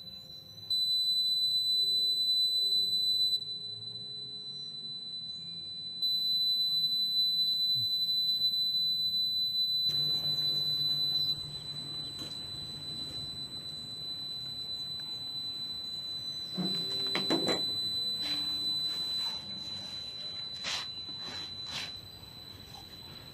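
A steady, high-pitched electronic tone like a held beep. It gets louder about a second in, drops back a couple of seconds later, and swells again for about five seconds before dropping. Faint clicks and knocks come in the second half.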